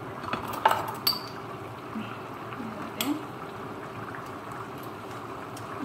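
Thick tomato and ground-beef spaghetti sauce bubbling as it simmers in a pot, with a few light clinks and knocks in the first second and one more about three seconds in.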